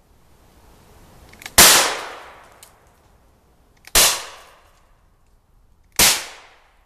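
Three shots from a Taurus Circuit Judge, a .410-bore / .45 Colt revolving carbine, about two seconds apart, each a sharp crack with a fading echo; the first has the longest tail. A faint click comes just before each shot.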